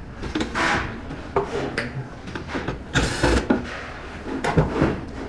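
Irregular clicks, knocks and scraping of hands working parts loose inside a power module: the terminal being removed to free the relay board. A longer scraping rush about three seconds in.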